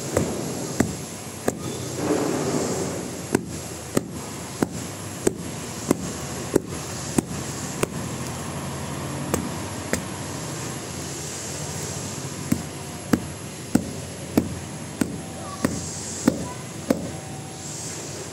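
A coconut still in its husk being beaten with a hand-held stone: sharp, hard knocks at an even pace of about one every 0.6 s, two runs of them with a pause of a few seconds between.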